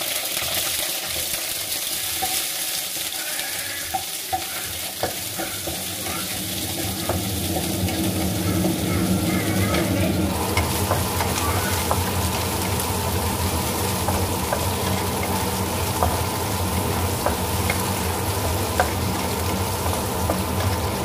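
Shallots, garlic and red chillies sizzling in hot oil in a nonstick frying pan, stirred with a wooden spatula, with scattered light ticks. The sizzle grows a little louder about eight seconds in.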